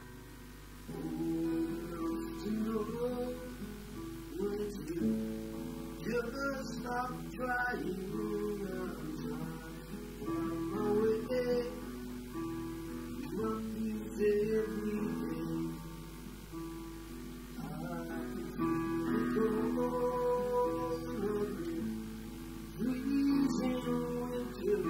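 Acoustic guitar strummed in chords alongside a Roland digital piano, playing a slow song. The playing picks up again about a second in after a brief lull.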